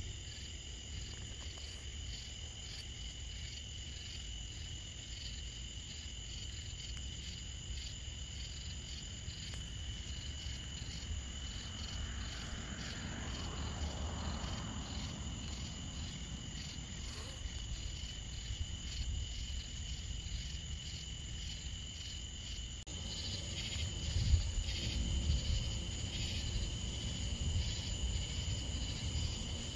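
Night insects chirring in a steady high trill, over a low rumble that grows louder and rougher about three-quarters of the way through.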